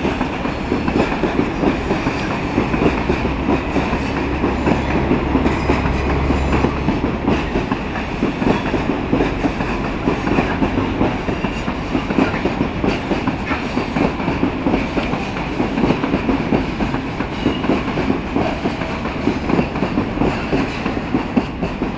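A loaded freight train of Eaos open wagons rolling past, the wheels clattering over the track with a steady rumble and many irregular clicks.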